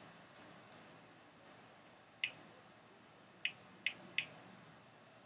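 Irregular series of light, sharp clicks, about eight in five seconds, the last three close together near the end.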